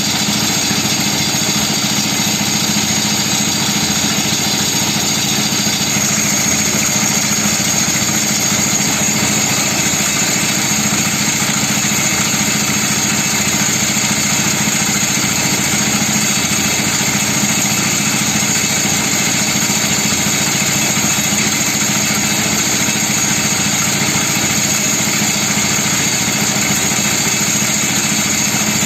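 Portable concrete mixer's small engine running steadily at an even speed, a constant unbroken drone.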